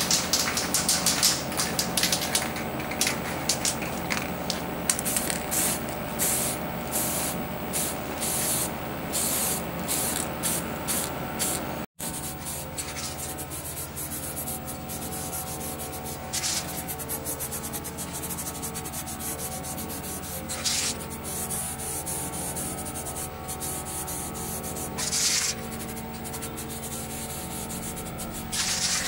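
Aerosol spray paint can spraying. For the first dozen seconds it comes as a quick run of short bursts, then as a few separate sprays of about a second each.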